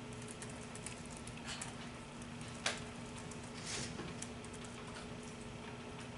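Quiet classroom room tone: a steady low hum with scattered light clicks and rustles from people working at their desks. One sharper click comes a little before halfway.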